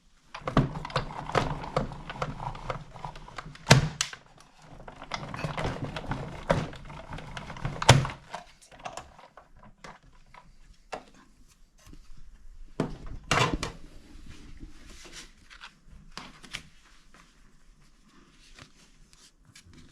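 Sizzix Big Shot embossing machine being hand-cranked, its rollers rumbling as the plates and embossing folder pass through, with loud thunks about four and eight seconds in. After that come scattered clicks and knocks from the plates being handled, with one louder knock about thirteen seconds in.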